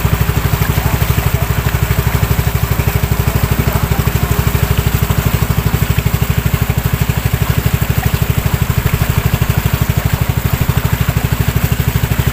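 Small boat engine running steadily under way, a fast, even low thudding, with the hiss and splash of water rushing past the hull.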